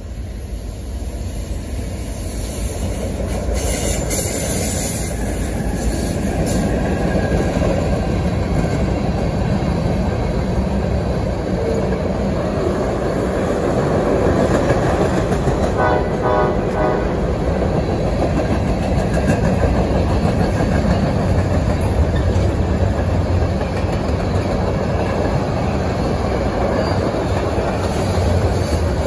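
Norfolk Southern freight train passing on the rails: wheels and cars rumbling and clattering, growing louder over the first several seconds and then holding steady. A brief pulsed tone sounds a little past halfway.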